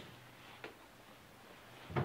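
Near silence: room tone, with one faint tick about two-thirds of a second in.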